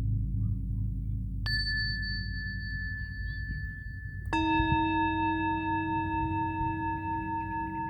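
Singing bowls struck and left to ring: a low pulsing tone fades, then a small high bowl is struck about one and a half seconds in, and a deeper bowl about four seconds in. Both ring on steadily.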